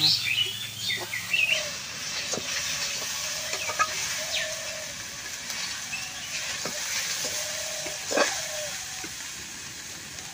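Metal spatula scraping and knocking in an iron wok as grated coconut cooked with jaggery is stirred, at irregular intervals with the loudest knock about eight seconds in, over a faint steady hiss from the cooking.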